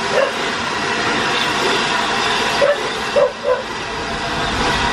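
The Flying Scotsman, an LNER A3 Pacific steam locomotive, pulling slowly away with its train: a steady loud rush and hiss of steam, with a few short sharp sounds around three seconds in.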